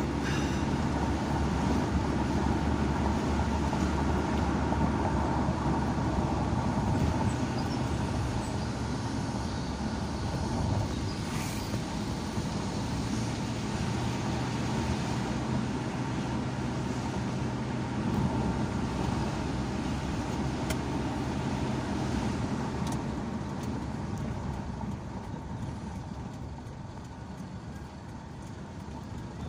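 Car engine and tyre noise heard from inside the cabin while driving along a concrete road: a steady hum that grows quieter over the last few seconds.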